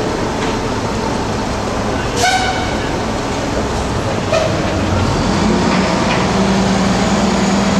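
Subway train running through the station: a steady rumbling noise, with a brief high-pitched sound about two seconds in. A low, steady hum comes in about five seconds in and cuts off near the end.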